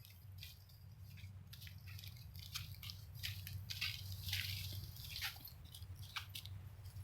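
Faint scattered crunching and crackling steps, likely feet on sand and brush while climbing back up to the track, over a low steady hum.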